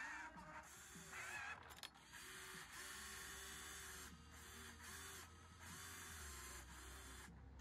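Small electric motors of a radio-controlled toy construction machine whirring in short stop-start bursts, each a second or less.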